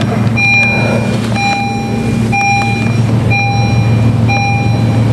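Parked car's engine idling steadily, with a dashboard warning chime beeping about once a second over it.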